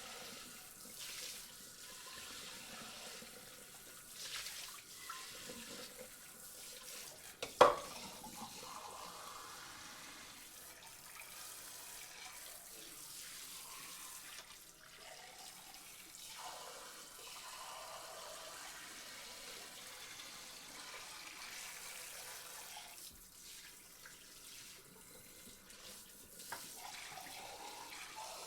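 Running tap water splashing in a sink while dishes are washed by hand, with scattered clinks and knocks of crockery. One sharp clatter of dishes about seven and a half seconds in is the loudest sound, with a smaller clink near the end.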